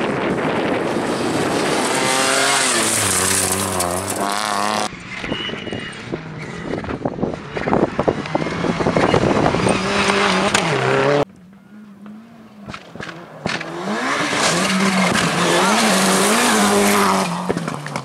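Rally car engines revving hard at speed on a gravel stage, pitch climbing and dropping with the gear changes, in several shots that cut abruptly about five and eleven seconds in. There is a brief quieter stretch after the second cut before another car comes in loud.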